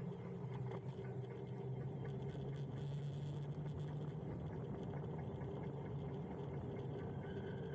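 Huck Cycles Stinger electric motorbike being ridden: a steady hum from its hub motor over wind and tyre noise, with faint light clicking from a loose camera mount.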